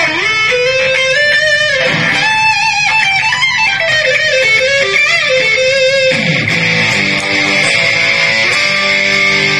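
Cort NZS-2 electric guitar played through a Peavey Bandit 112 amp: a sustained single-note lead line with bends and vibrato, then a fuller passage about six seconds in, with pitch swooping down twice.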